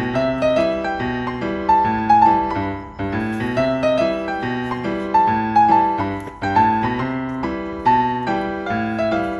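Background music: a gentle piano melody of struck notes, with a short phrase that repeats about every three and a half seconds.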